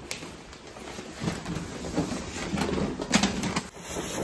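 Rustling and handling noise as a door is opened and paper and plastic shopping bags are moved about, with a sharp knock about three seconds in.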